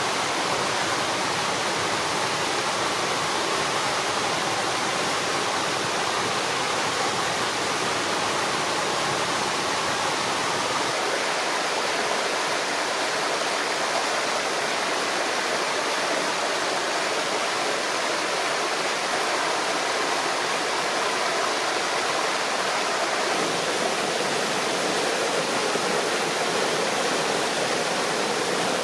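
Small waterfalls of a rocky stream, water rushing and splashing steadily over the ledges into the pools below.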